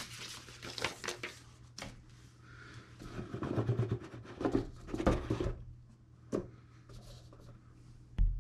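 Hands handling the smartwatch's packaging and paper inserts: rustling with scattered light clicks and taps, and one dull thump near the end.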